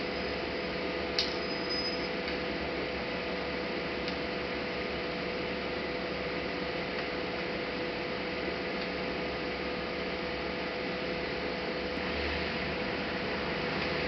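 Steady hiss and hum, with one sharp click about a second in and a few fainter ticks later.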